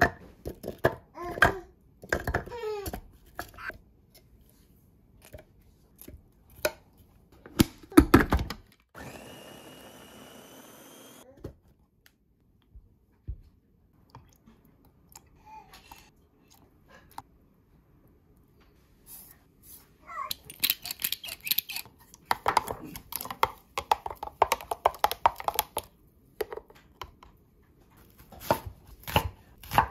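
Food preparation: clicks and knocks as ingredients are handled and dropped into a plastic mini chopper bowl, then the electric mini chopper's motor runs steadily for about two seconds. Near the end a chef's knife cuts an onion on a wooden board in quick strokes.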